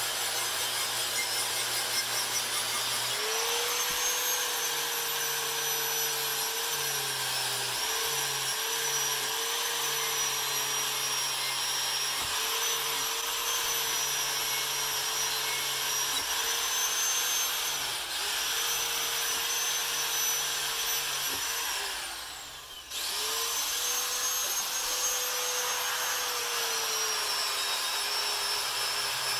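Small power tool motor running with a steady whine and a hiss of abrasion, speeding up about three seconds in and dipping in pitch now and then as it is loaded. It winds down and stops about 22 seconds in, then starts up again.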